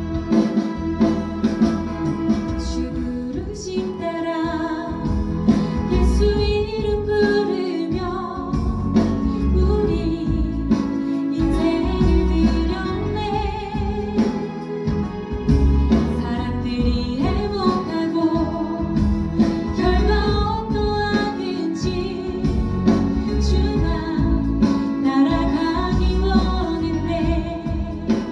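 A woman sings a Korean Christian praise song solo into a handheld microphone over instrumental accompaniment. Her voice comes in a few seconds after the instrumental intro.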